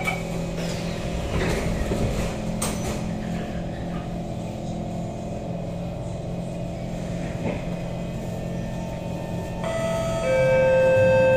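Cabin of a Kawasaki C151 MRT car at the platform: a steady hum of the car's equipment, with a thump near three seconds in as the doors shut. About ten seconds in, the traction motors start with a loud whine of several steady tones as the train begins to pull away.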